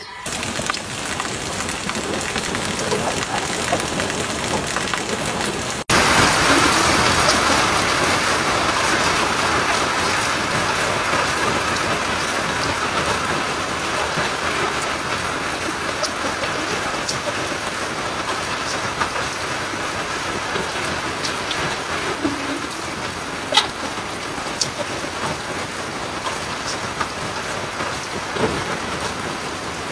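Batter-coated chicken pieces frying in a pan of hot oil, sizzling steadily with occasional sharp pops. The sizzle jumps louder about six seconds in.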